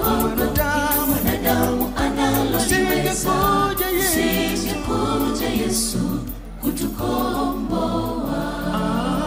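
A mixed gospel choir singing in close harmony in Swahili, over a steady beat. The sound thins briefly about six seconds in, then the choir carries on more softly.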